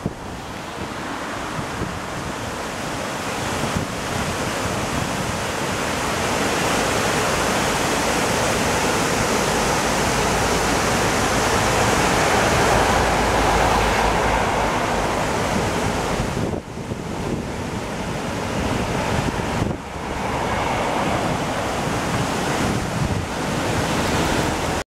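Water cascading over the steps of a river weir: a steady, dense rush of white water that swells louder over the first dozen seconds.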